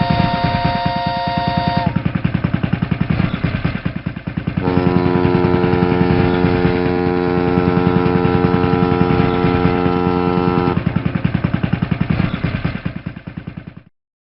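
Boat engine chugging in fast, even pulses, with a horn blast that stops about two seconds in and a second, lower horn blast from about five to eleven seconds. The engine fades and cuts off near the end.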